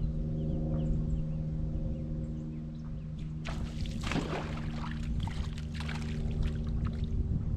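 A boat motor running steadily, with water splashing and spraying over it from about halfway through.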